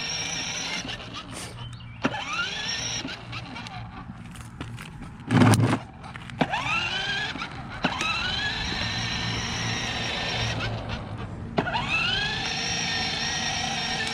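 A child's battery-powered ride-on's electric motor whines up in pitch and holds steady each time the throttle button is pressed, starting up again about two, six and eleven seconds in; the father suspects its battery is running low. A brief loud noise about five and a half seconds in.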